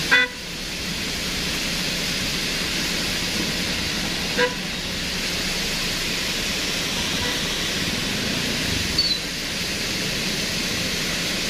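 Two short vehicle horn toots, one right at the start and another about four and a half seconds in, over a steady hiss of rain and running water.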